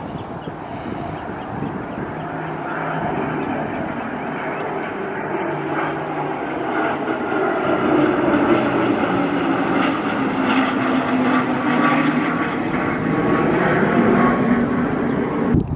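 Cessna Citation business jet's twin turbofan engines on landing approach: a steady jet whine and rush that grows louder as the jet comes overhead and is loudest in the second half.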